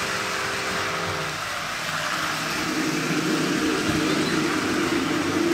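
Lionel O-gauge toy trains running on three-rail tinplate track: a steady rumble and hum of wheels and electric motors, with the postwar 634 diesel passing close at the start.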